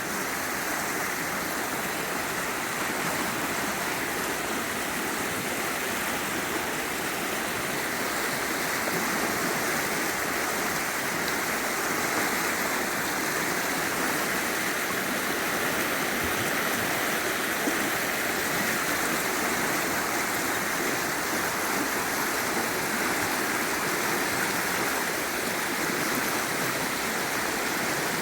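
Steady rush of flowing river water over rocks.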